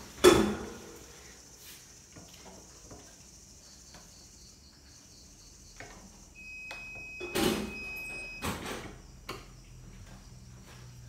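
Knocks and thumps of wooden screen-printing frames handled on a manual press: a loud thump just after the start and another about seven and a half seconds in, with lighter clicks and taps between.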